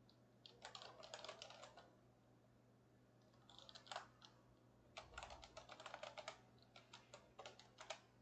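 Faint computer keyboard typing in several short bursts of rapid keystrokes with pauses between them, over a low steady electrical hum.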